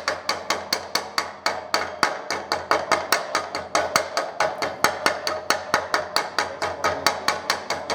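Aluminum stick welding on a pulsed machine: the arc crackles and hisses, with a sharp, evenly spaced crack about five or six times a second as the current pulses. It stops just after the end.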